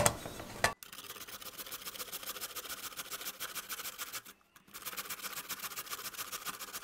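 Peeled raw potato being grated by hand on a stainless steel box grater: a fast, even run of scratchy rasping strokes that breaks off briefly a little past halfway and then resumes. A short knock comes at the start.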